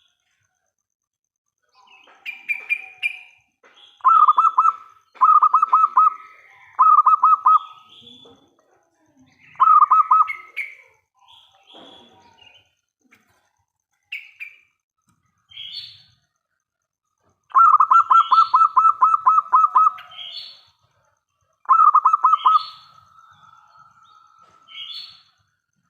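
Zebra dove (perkutut) cooing in repeated bouts of quick staccato notes, the longest bout near the middle. Short, higher rising chirps come between the bouts.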